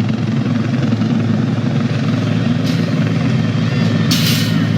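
Helicopter running overhead, a steady low thrum, with a short hissing burst about four seconds in.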